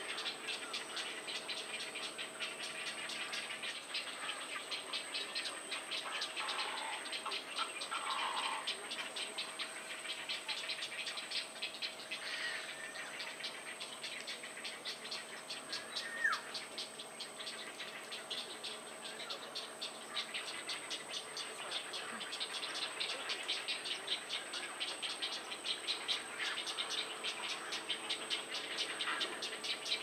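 A continuous fast rattling chorus of rapid even pulses, under a steady high whine. A few short calls come through, with a single falling whistle about halfway through.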